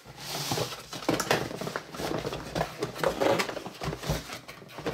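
Small plastic Play-Doh tubs knocking and clattering together as hands rummage through a cardboard box of them, with many short knocks throughout.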